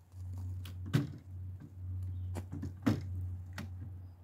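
Clicks and knocks of an AR-style rifle's parts being handled and taken apart on a plastic folding table, as the upper and braced lower are separated. Two sharper knocks come about one and three seconds in, over a steady low hum.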